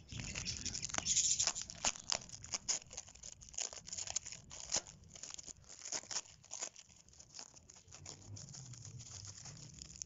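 Packing tape being torn and peeled off a foam-wrapped parcel by hand, with the crackling and crinkling of the foam wrap being pulled apart. Irregular crackles throughout, loudest and densest in the first two seconds.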